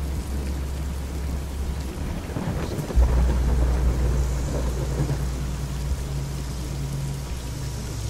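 Rain falling with a low rumble of thunder rolling through. The rumble grows about two seconds in and turns louder and deeper about three seconds in.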